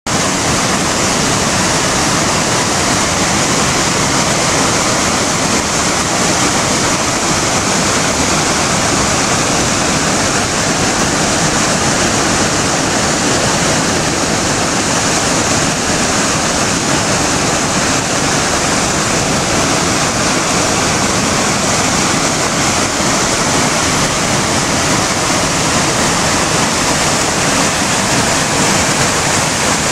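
River rapids rushing through a narrow rocky gorge: a loud, steady sound of white water.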